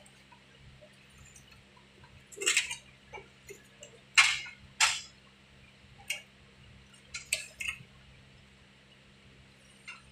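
Scattered metal clinks and knocks of a hand tool working the brass service-valve fittings of an air-conditioner outdoor unit, the loudest two about four seconds in, over a faint steady low hum.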